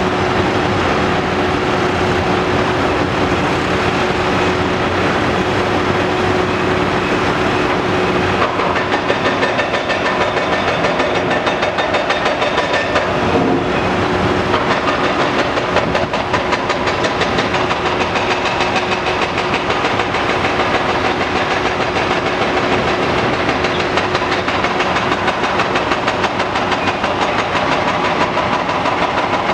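Caterpillar 330DL hydraulic excavator at work: its diesel engine runs steadily under load with a steady whine, while broken concrete clatters and scrapes as the bucket digs into the rubble pile.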